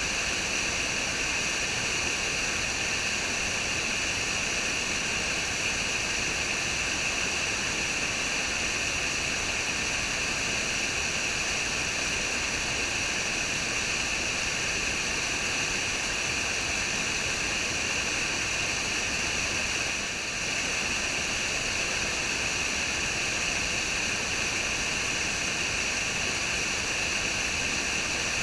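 Waterfall: a steady, even rush of falling water, dipping briefly about two-thirds of the way through.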